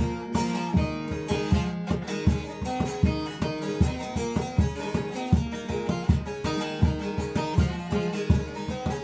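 Instrumental passage of a Turkish folk song (türkü): plucked string instruments playing a melody over a steady low beat.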